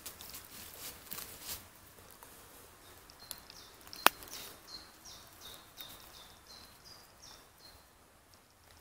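Leaf litter and moss rustling and crackling as a hand picks chanterelle mushrooms from the forest floor, with one sharp click about four seconds in. From about the middle on, a small bird sings a string of short high notes, about two a second.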